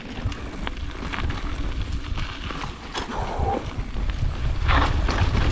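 Mountain bike riding down a dirt trail: wind rumbles on the microphone and the bike makes scattered rattles and clicks over the ground. It gets louder near the end.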